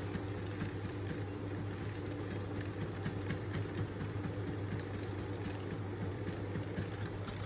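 Desktop PC running just after power-on, its cooling fans and power supply giving a steady hum, with light clicks of the F12 key being pressed over and over to bring up the boot menu.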